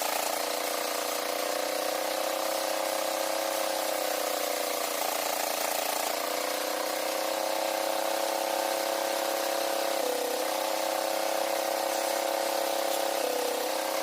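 Sawmill saw running continuously with a steady hum and hiss. Its pitch sags slowly once in the middle and dips briefly twice near the end.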